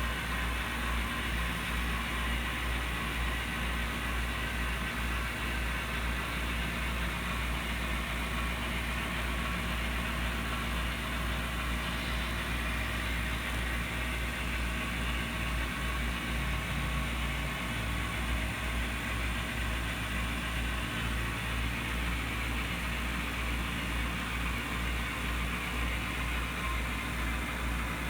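Model CSX diesel locomotive running steadily up a layout helix with two cars in tow: a constant mechanical hum with a strong low drone and an even hiss above it.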